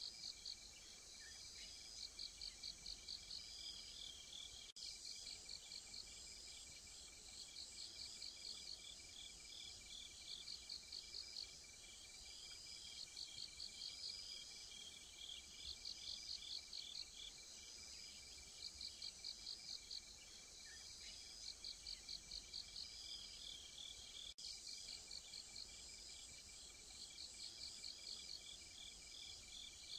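Faint night insects calling. One cricket chirps in trains of about eight quick pulses, repeating every couple of seconds, over a steady high trill and a fainter chorus higher still.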